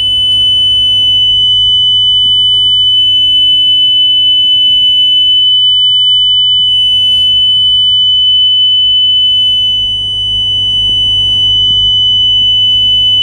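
Steady 3000 Hz pure tone from two phones running tone-generator apps about a metre apart. The pitch never changes, but the loudness dips briefly about three-quarters of the way in and comes back up as the microphone passes a quiet spot where the two waves cancel: sound-wave interference between two sources.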